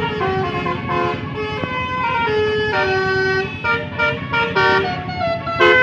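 Bus 'telolet' Basuri multi-tone air horn playing a quick tune of short horn notes over the bus's running engine. It grows louder near the end.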